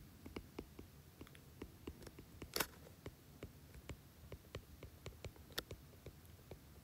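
Faint, irregular clicks of a stylus tip tapping on a tablet's glass screen during handwriting, several a second, with two louder taps about two and a half and five and a half seconds in.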